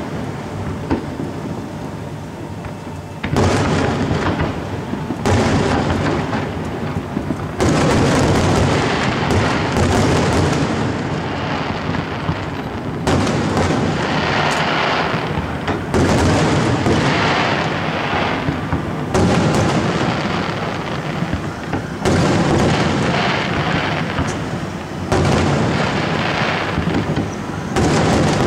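Aerial fireworks bursting: a new loud burst every few seconds, each trailing off into continuous crackling and rumbling echo.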